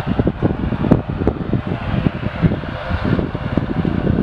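Twin PW127-series turboprop engines of an ATR 72-600 running as it taxis on the runway, a steady fan-like hum. Loud, gusty low rumble of wind on the microphone lies over it.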